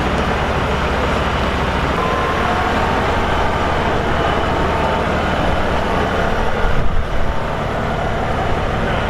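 LS MT240e compact tractor's diesel engine running steadily as the tractor is driven, with a brief louder burst about seven seconds in.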